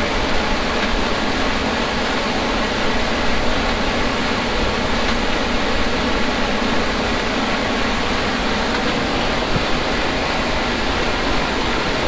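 Combine harvester running under load, a steady mechanical rush with a low hum and no change in level.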